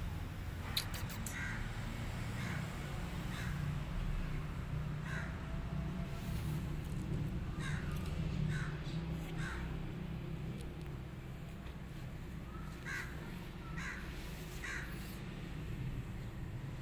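Short, sharp animal calls, about nine in all, singly or in quick groups of two or three with a pause midway, over a steady low rumble.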